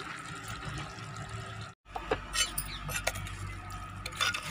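A spoon stirring and scraping thick curry in a clay pot, with several short scrapes and knocks in the second half, over a steady low hum.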